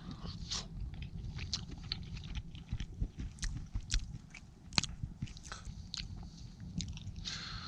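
A person chewing a mouthful of fish taco: irregular wet clicks and crackles of chewing, over a steady low rumble.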